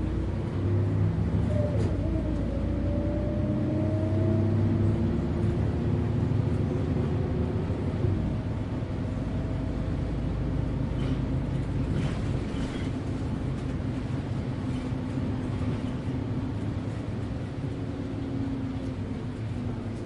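Riding inside a moving bus: the engine and drivetrain run with a deep rumble over road noise. A whine rises in pitch in the first few seconds, and a few light rattles come around the middle.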